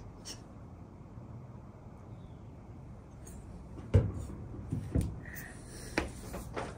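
A few knocks and clicks of hands handling a handheld car polisher and a compound bottle on a car roof: the loudest knock about four seconds in, then several smaller ones roughly half a second to a second apart. The polisher's motor is not running.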